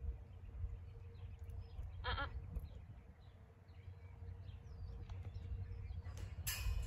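A sheep gives one short, quavering bleat about two seconds in, over a steady low rumble and faint bird chirps. Near the end comes a brief burst of hissing noise.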